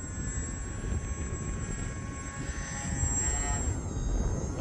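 Wind rumbling on the microphone, with the faint whine of a HobbyZone Aeroscout RC plane's electric motor and propeller in flight. The whine shifts in pitch about three seconds in.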